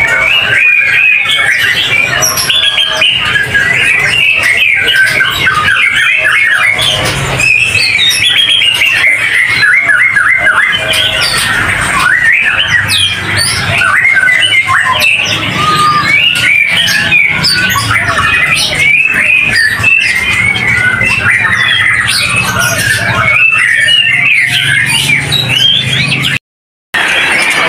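Many caged white-rumped shamas (murai batu) singing and calling at once in a dense, overlapping chorus of rapid whistles and chirps. The sound cuts out briefly near the end.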